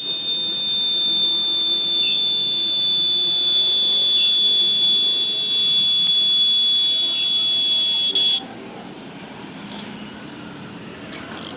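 A cicada singing at close range: a loud, steady, high-pitched buzzing whine. It stops abruptly about eight seconds in.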